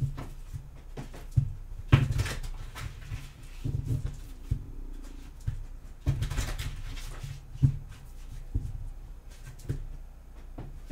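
Tarot cards being shuffled by hand: repeated bursts of cards flicking and slapping together, with short swishes and occasional knocks of the deck.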